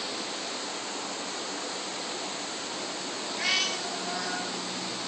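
A house cat meows once, short and high, about three and a half seconds in, followed by a fainter second meow; it is whining to be let back inside. A steady hiss runs underneath.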